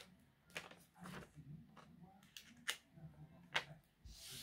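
Paper being handled and folded by hand: four short, faint crackles and taps, then a brief soft rustle near the end.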